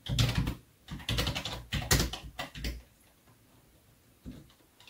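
Typing on a computer keyboard: quick runs of key clicks, a pause of about a second and a half, then a few more keystrokes near the end.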